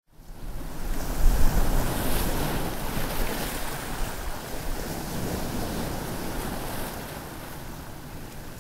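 Wind and sea surf, an even rushing noise with heavy low gusts that swell about a second in and then slowly ease off.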